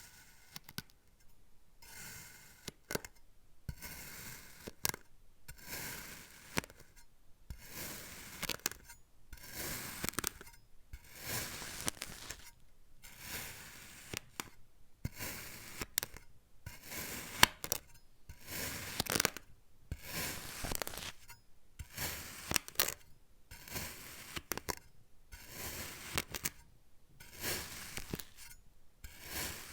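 Kinetic sand being cut over and over with a blade: a crunching, gritty stroke about once a second, with small sharp crackles inside each cut.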